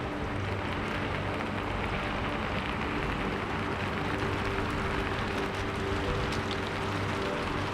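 Steady rain falling, an even hiss with a few faint drips, under soft background music of long held tones.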